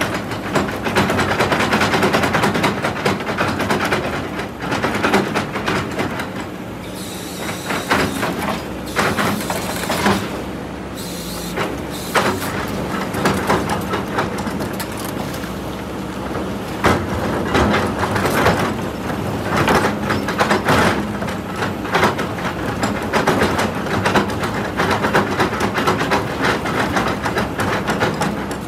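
Kobelco hydraulic excavator's diesel engine running steadily under load while its bucket pushes and scrapes against a large boulder, with repeated knocks and grinding of rock and soil.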